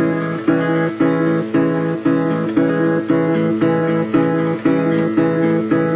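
Instrumental music: a guitar strumming a repeating chord pattern, about two strums a second, with no singing.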